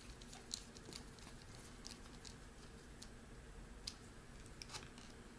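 Faint, irregular small clicks and ticks of a precision screwdriver turning tiny screws into the plastic housing of a fitness-tracker wristband.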